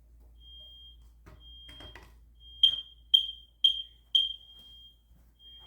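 Smoke alarms sounding with high-pitched beeps. A faint, repeating beep comes from an interconnected alarm elsewhere in the house. In the middle, four loud, sharp beeps about half a second apart come from the nearby Kidde combination smoke/CO alarm being set off with test smoke.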